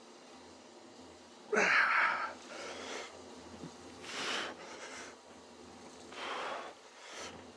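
A man's forceful breaths in time with straight-arm lat pull-down reps, a hard exhale about every two seconds; the first, about one and a half seconds in, is the loudest.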